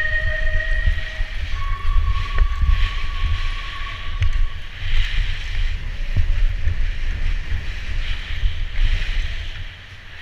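Wind buffeting a GoPro mounted on a BMX race bike at speed on a dirt track, a heavy low rumble throughout, with a few sharp knocks. A long electronic tone, the tail of the start-gate cadence, fades out about a second in, and a fainter steady tone sounds from about one and a half to four and a half seconds.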